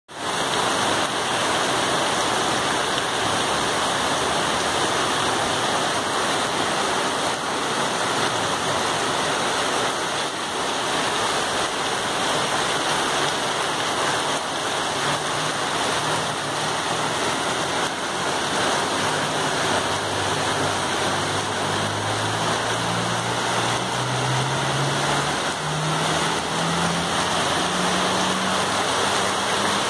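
Heavy downpour: a steady, dense rush of rain and running water on a flooded street. From about halfway through, a vehicle engine's low hum climbs steadily in pitch as it approaches through the water.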